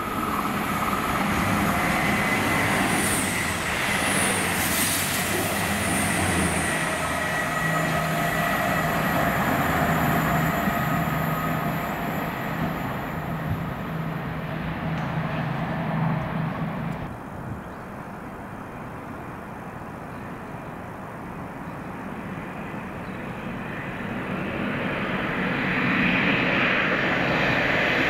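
Train running through the station, loud with steady engine or motor tones, until its sound drops away suddenly about seventeen seconds in. Rail noise then builds up again near the end as another train approaches.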